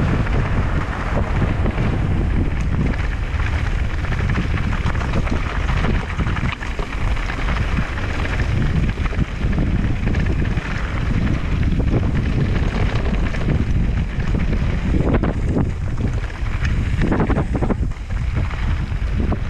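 Wind buffeting the microphone of a full-suspension mountain bike descending fast on loose gravel, with the tyres crunching and the bike rattling over the stones. A few sharper knocks come near the end.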